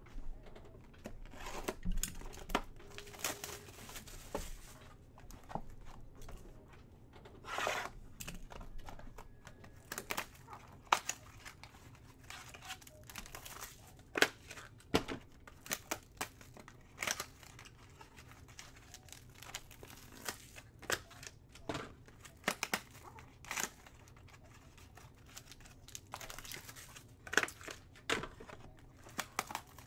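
Plastic shrink wrap crinkling and tearing, with cardboard hobby boxes being handled and set down, as sealed boxes of trading cards are unwrapped and opened. The sounds come as many short, irregular crackles and taps.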